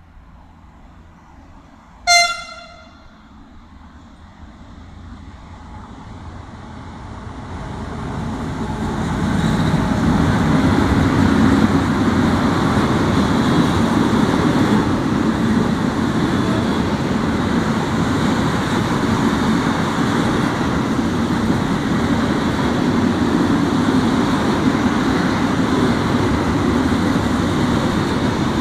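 An approaching freight locomotive gives one short horn toot about two seconds in. The train then grows louder over several seconds and becomes a steady rumble of car-carrier wagons rolling past close by.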